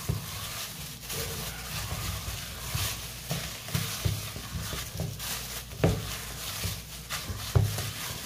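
Mashed potato dough being kneaded by hand in a stainless steel bowl: squishing and the rustle of plastic gloves, with a couple of sharper knocks against the bowl in the second half.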